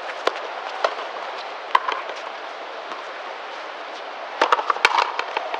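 Frontenis rally: the rubber ball smacking off rackets and the front wall, a few single sharp hits in the first two seconds, then a quick run of hits and bounces about four and a half seconds in.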